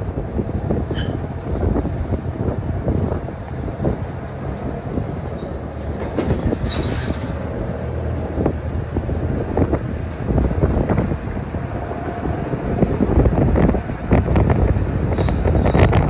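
New Holland 1282 Haycruiser self-propelled baler running and creeping up onto a flatbed trailer, its engine a steady low rumble with occasional knocks and clanks as it climbs the deck. Wind buffets the microphone.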